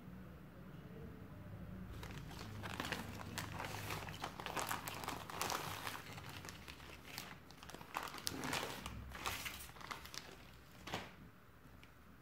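Clear plastic packaging crinkling and rustling in irregular bursts as it is handled and opened by hand, starting about two seconds in, with one sharp crackle near the end.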